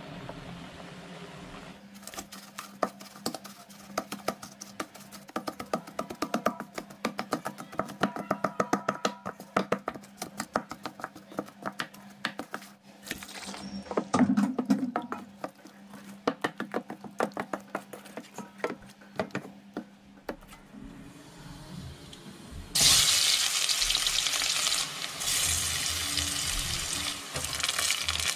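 Water boiling briefly, then a wooden spoon knocking rapidly against a metal pan as boiled potatoes are mashed. About 23 seconds in, chopped shallots begin sizzling loudly in hot oil.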